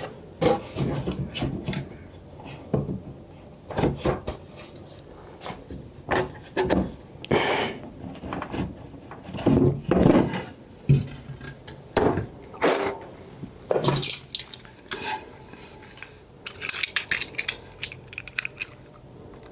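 Irregular clatter of hard objects: tools and wooden drawer parts knocked, set down and slid on a workbench during a drawer glue-up. There are some longer scrapes, and a quick run of small clicks near the end.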